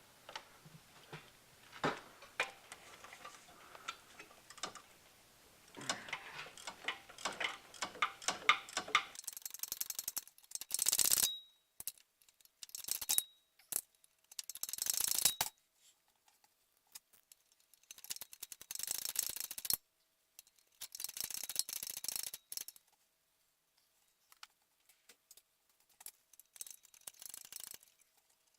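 Hand ratchet clicking in quick runs of a second or two with short pauses between, loosening a torque converter bolt through the starter opening.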